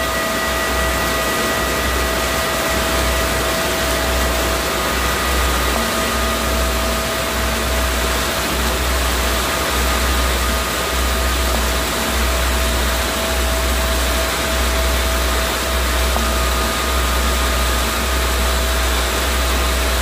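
Heavy rain falling steadily, with an uneven low rumble beneath it and a faint steady ringing tone running through it.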